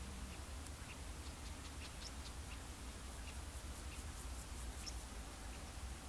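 Open-field ambience: scattered short, high bird chirps and ticks over a steady low rumble of wind on the microphone.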